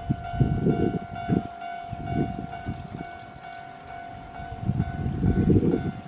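Japanese railway level-crossing warning bell ringing, a steady electronic tone repeating about twice a second. Irregular gusts of low rumbling noise come and go over it, strongest near the start and again near the end.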